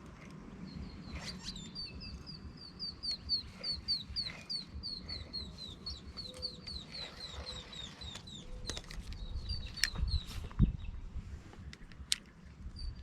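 A bird calling a long series of short, high, down-slurred notes, about three a second, for most of nine seconds. A few sharp clicks and a low thump come near the end.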